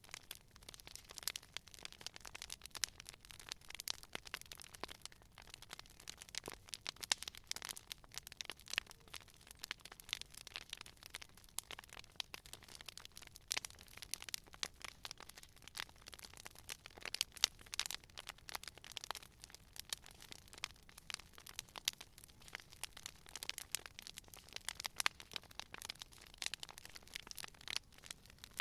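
Wood fire crackling steadily, with a dense run of small irregular crackles and frequent sharper pops as the burning wood splits.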